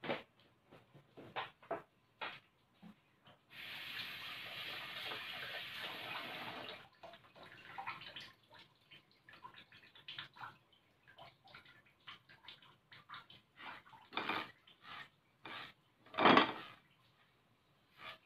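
Kitchen clatter: scattered clinks and knocks of pots and utensils, with water running for about three seconds a few seconds in, and one louder knock near the end.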